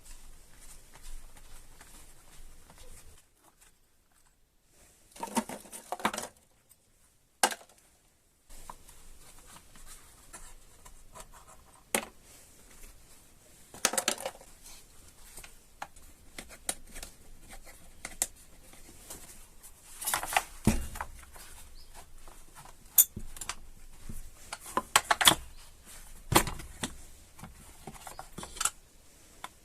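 Irregular clicks, taps and rattles of small hard parts being handled, with two short silent breaks a few seconds in.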